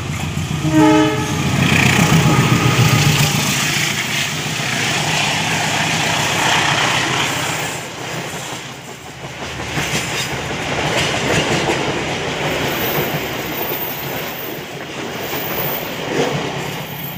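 CC203 diesel-electric locomotive passing at full throttle on an upgrade, its engine loud for the first few seconds, with a short horn toot about a second in. Then the passenger coaches roll by with a steady rumble and clatter of wheels on the rails.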